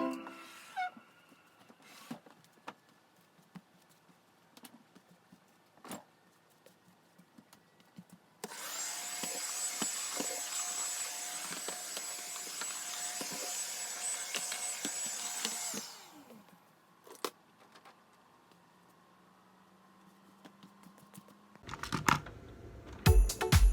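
Vacuum cleaner switched on and run steadily with a high motor whine for about seven seconds, then switched off. Faint clicks and handling knocks come before and after it.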